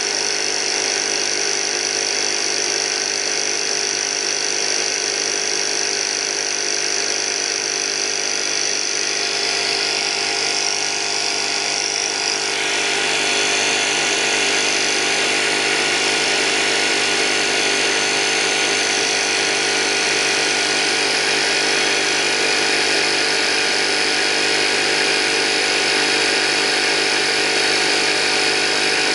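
Porter-Cable 6-gallon oil-free pancake air compressor running steadily, its motor and pump building the tank back up to pressure after air was bled off. About twelve seconds in its sound changes and gets slightly louder.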